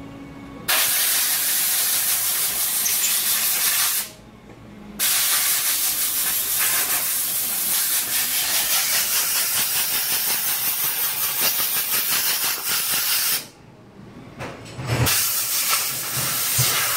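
Compressed-air blow gun hissing as it blows water out of a freshly washed K&N cotton air filter. It comes in three long blasts, broken off briefly about four seconds in and again about thirteen seconds in.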